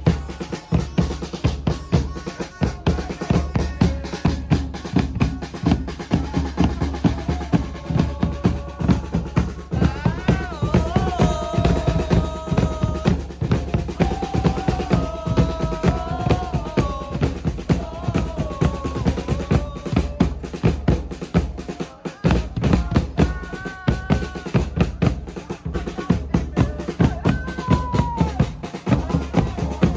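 Drums beaten in a fast, steady rhythm, dense with strikes. From about ten seconds in, a melody that rises and falls in pitch is carried over them.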